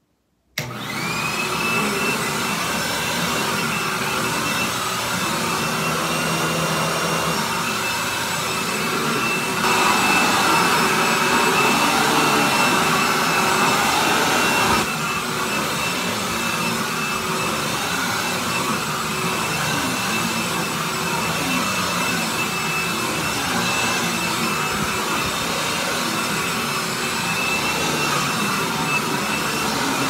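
Hoover Tempo Widepath upright vacuum cleaner switched on about half a second in, its motor coming up to a steady whine and running on while it is pushed over carpet. It gets louder for about five seconds from around ten seconds in.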